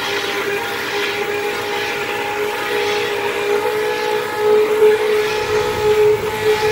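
Handheld immersion (stick) blender motor running steadily in a stainless steel pot of soap batter, mixing oils and lye solution toward trace. About four and a half seconds in, its pitch rises slightly and the sound turns louder and more uneven as the blade churns the thickening batter.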